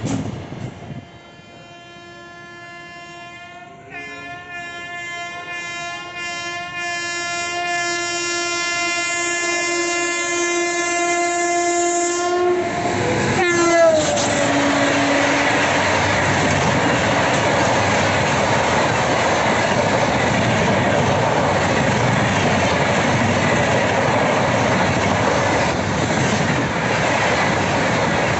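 WAP-7 electric locomotive's horn sounding a long blast as the train approaches at speed, growing louder, its pitch dropping sharply as the locomotive passes about halfway through. Then comes the steady rush and wheel clatter of the passenger coaches going by at speed.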